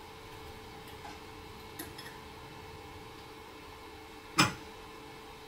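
Elegoo Mars resin printer's cooling fan running steadily, with a few light metal ticks and one sharp click about four seconds in as an Allen wrench works the build-plate screws.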